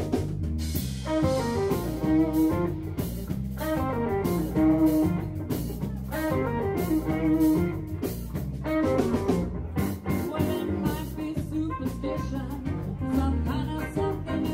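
Live blues band playing: electric guitar and harmonica lines over bass guitar and a drum kit, with repeated falling melodic runs.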